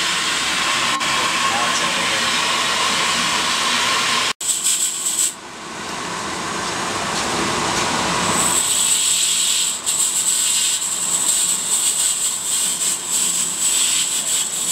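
Loud, steady hissing rush of water and air being forced through a geothermal ground loop's pipework while the loop is flushed and purged of air. It cuts off abruptly about four seconds in, comes back softer and builds up again, and from about halfway a thin, steady high-pitched tone rides over the rush.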